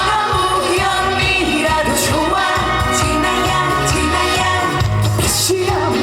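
A Korean trot song performed by a male singer over an amplified backing band, with a steady beat and the singer's voice held and bending over the melody.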